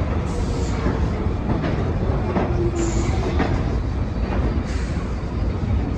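Subway train running, heard from inside a car: a steady rumble of wheels on rails with a few irregular clacks.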